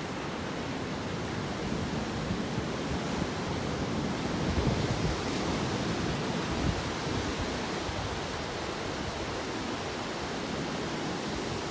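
Ocean surf from typhoon swell breaking and washing on a beach, a steady rushing noise that swells louder around the middle.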